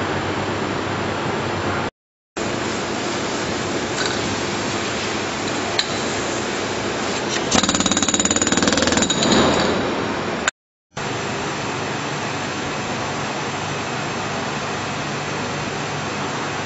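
Steady workshop machinery noise, with a louder rapid mechanical rattle for about two seconds near the middle. The sound cuts out completely for a moment twice, at edit cuts.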